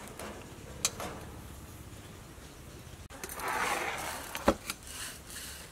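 Light clicks and knocks of a metal pan and dishes being handled, with a sharp knock about four and a half seconds in.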